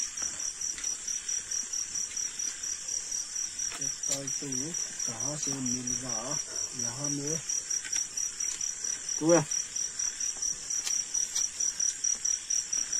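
Crickets chirping in a steady, fast, high-pitched pulsing trill. A man's low voice hums or murmurs wordlessly for a few seconds from about four seconds in, and a short louder vocal sound comes just after nine seconds.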